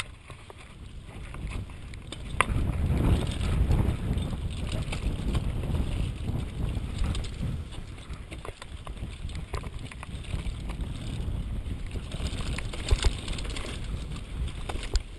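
Mountain bike rolling fast down a bumpy dirt trail, its tyres rumbling and the ride clattering, with wind buffeting the microphone. Sharp knocks come about two and a half seconds in and again near the end.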